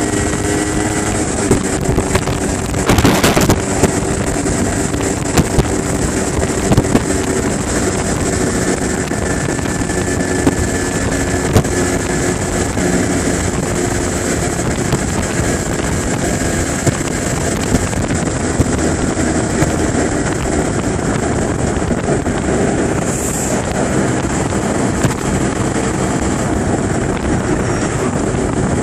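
Aprilia RS125's two-stroke single-cylinder engine running at road speed, mixed with wind buffeting on the microphone. There is a brief louder rush of noise about three seconds in.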